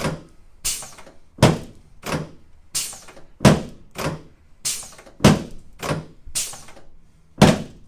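Rhythmic percussive thumps of hands-on soft-tissue work on a patient's hips and thighs, about three strikes every two seconds with every third one harder.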